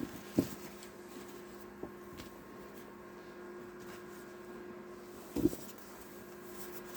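A few soft knocks and faint ticks of items being handled on a table, the strongest knock about five and a half seconds in, over a steady low hum.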